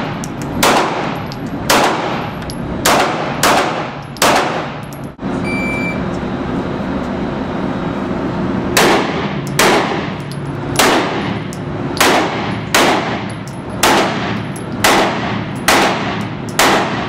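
Pistol shots with echo off the walls of an indoor range, fired singly about once a second: five shots, a break with a short beep, then a string of about nine more.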